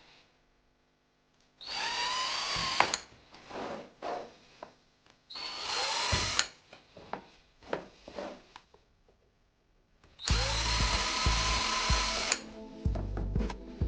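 Electric screwdriver driving screws in three short runs, the second and longest ones near the middle and end, each rising in pitch as the motor spins up; the screws are extra ones fixing the bread maker's gearbox and motor so the toothed belt stays on. Light clicks and handling noise between the runs.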